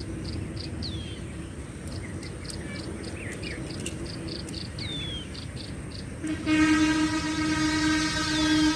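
Insects chirping in a steady pulsing rhythm, with a few falling bird whistles, then about six seconds in a long, loud vehicle horn blast held for over two seconds.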